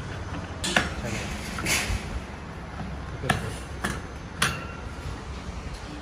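Plastic feeder cup clicking and knocking against the wire bars of an iron-wire bird cage as it is fitted on: about five sharp clicks over a low steady hum.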